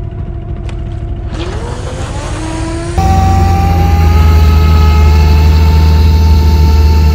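A boat motor speeding up, its whine rising in pitch. About three seconds in it turns suddenly louder and runs steady at high speed, the whine still creeping up slightly.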